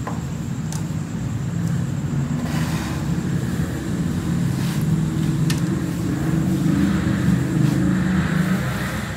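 An engine running steadily, a low rumble that grows louder through the middle and eases near the end, with a few faint clicks.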